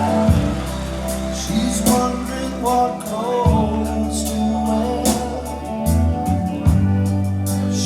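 Recorded music with a singing voice over long held bass notes and regular cymbal strokes, played back over a hi-fi loudspeaker system with a subwoofer.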